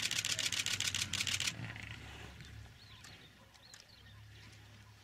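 A rapid burst of camera shutter clicks, about ten a second, lasting a second and a half, over a low steady hum; after the burst only the hum and a few faint chirps remain.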